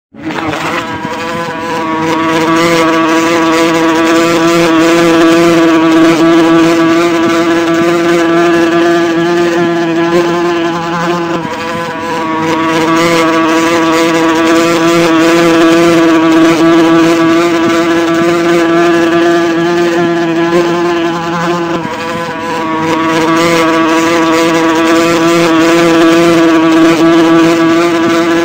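Wasp buzzing in a continuous drone whose pitch wavers slightly; it eases off briefly twice before coming back up to full strength.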